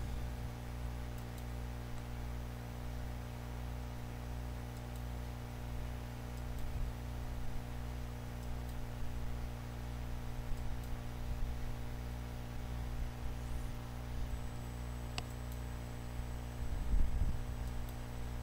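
Steady electrical mains hum, a low buzz with evenly spaced overtones, on the recording. There is a faint click about fifteen seconds in and a soft low thump shortly before the end.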